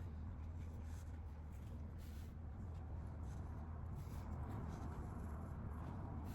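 Faint, irregular soft rustling and scratching of hands working fibre stuffing into doll parts, over a steady low hum.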